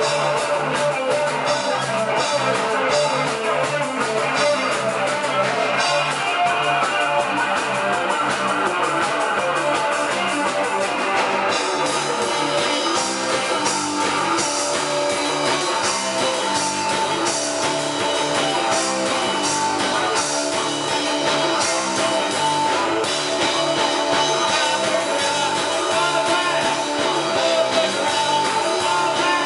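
Live rock band playing: electric guitar, bass guitar and drum kit with cymbals, unbroken throughout.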